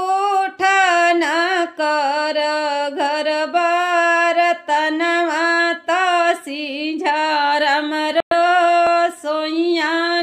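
A woman singing a sohar, a Bhojpuri folk song, unaccompanied. She holds long notes with wavering turns of pitch and takes short breaths between phrases. The sound cuts out briefly a little past eight seconds.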